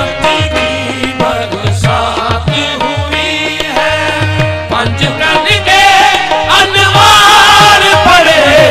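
Music: a voice singing a wavering melody over tabla drumming, growing louder about six seconds in.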